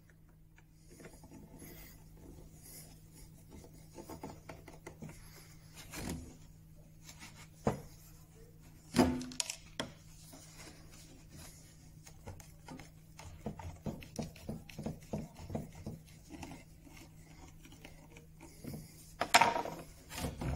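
Wood rubbing and scraping on wood as a camera's wooden panel and frame are worked by hand, with a few sharp knocks and, past the middle, a run of short, quick rubbing strokes.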